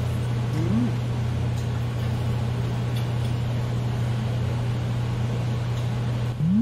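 Steady low hum of a restaurant's table-grill extraction fan, with faint clicks of chopsticks and dishes. A loud rising tone starts near the end.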